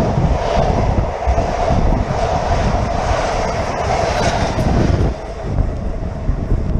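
Renfe class 447 electric commuter train passing close by, a steady rumbling run under heavy wind buffeting on the microphone; the train noise eases about five seconds in.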